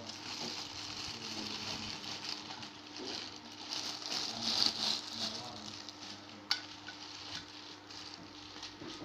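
Crinkling and rustling of plastic packaging being handled, loudest near the middle, with one sharp click about six and a half seconds in, over a faint steady hum.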